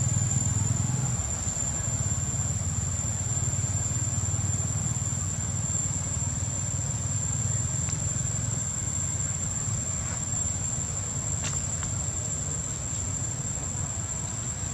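Steady low background rumble under a constant high-pitched whine.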